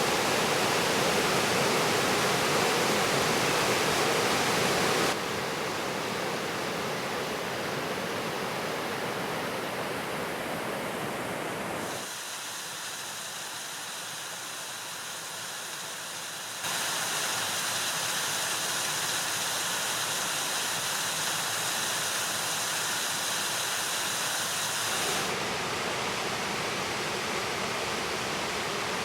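Waterfalls rushing in five successive clips, each a steady roar of falling water. The sound changes abruptly in loudness and tone about 5, 12, 17 and 25 seconds in, as one waterfall gives way to the next.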